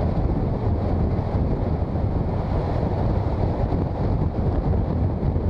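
Steady wind rush on the microphone of a camera on a moving motorcycle, with the bike's engine and road noise underneath.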